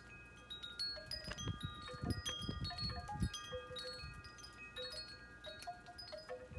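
Wind chimes ringing, many short notes at scattered pitches over a sustained ringing, with a few low rumbles of wind or handling on the microphone.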